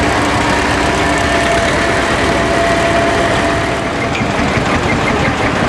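Tractor engines running as tractors pull trailers slowly past: first a vintage tractor towing a small wagon, then, after a change about four seconds in, a modern tractor towing a passenger trailer, with a faint regular ticking.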